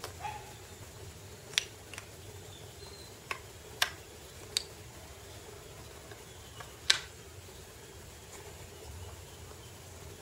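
Wooden jigsaw puzzle pieces knocking and clicking against a hard floor and each other as they are picked up and fitted together: about six sharp taps spread irregularly, over a low steady hum.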